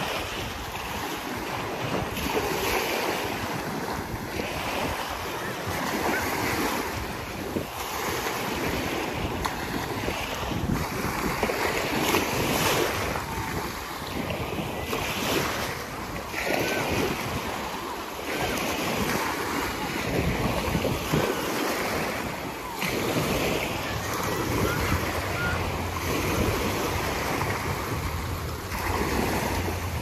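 Small waves breaking and washing up the shore in a continuous surf wash that swells every few seconds. Wind buffets the microphone, and a low steady hum joins in about two-thirds of the way through.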